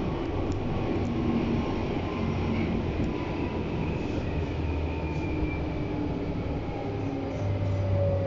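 BVG class H U-Bahn train running into a station and slowing, heard from inside the car: steady rumble of wheels on rail with an electric motor whine that falls steadily in pitch as the train brakes.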